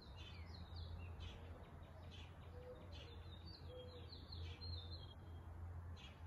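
Faint bird chirping in quick runs of short falling notes, over a low steady hum.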